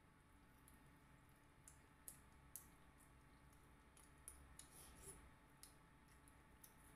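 Faint eating sounds: scattered small clicks and smacks of chewing and of fingers picking at fried fish and rice, over a low steady room hum.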